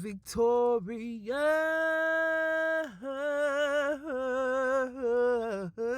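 A solo voice singing a drawn-out chant, stretching one word over long held notes: a long steady note about a second in, then wavering notes with vibrato.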